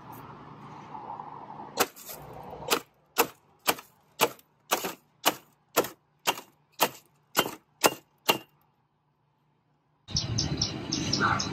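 Hammer blows crushing a white polystyrene foam takeout container against stone: about a dozen sharp cracking hits, roughly two a second, then they stop.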